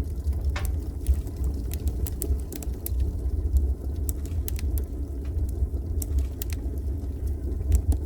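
Crackling log fire: a steady low rumble with irregular sharp pops and crackles.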